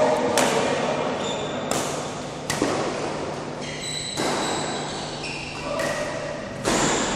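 Badminton racket strokes on a shuttlecock during a rally: five sharp cracks at uneven intervals, echoing in a large hall, with short high squeaks between them.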